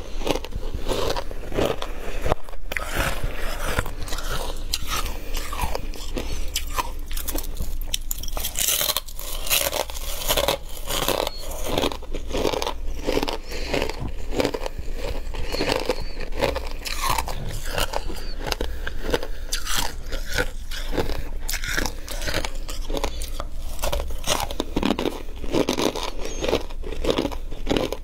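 Close-up crunching and chewing of flaky freezer frost: rapid, continuous crisp crunches of ice being bitten and chewed, with a steady low hum underneath.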